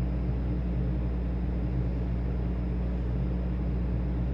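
Steady low machine hum with several fixed low tones under a faint hiss, unchanging throughout.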